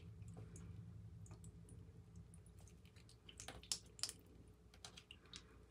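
Near silence with a few faint clicks of long fingernails against tarot cards, the sharpest about three and a half and four seconds in.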